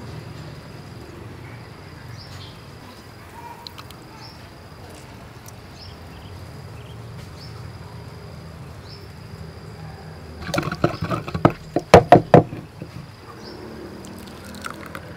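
A pestle knocking and working in a mortar that holds liquid dipping sauce: a quick run of loud knocks a little past the middle. Insects chirp steadily in the background.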